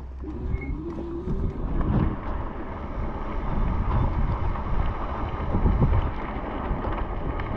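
Wind buffeting the microphone while riding an electric bike: a steady rushing rumble that swells in gusts.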